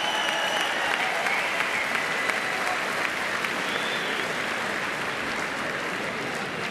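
Large arena crowd applauding, easing off slightly toward the end.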